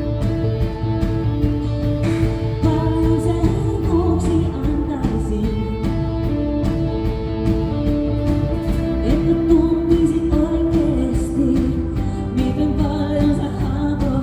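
Live pop band with a woman singing lead into a microphone, bass guitar and drums playing a steady beat under her voice.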